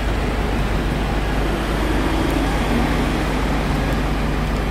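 A steady low mechanical rumble with a faint hum.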